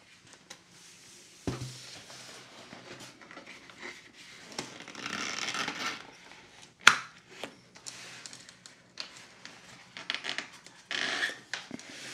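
Large corrugated cardboard box handled on a wooden tabletop: cardboard sliding, scraping and rustling under the hands, with one sharp knock about seven seconds in.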